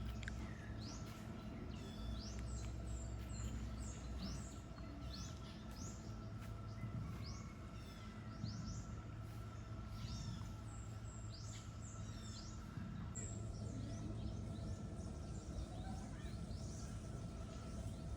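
Birds calling, many short, quick downward-sweeping chirps repeated over and over, over a steady low rumble and a faint constant high whine.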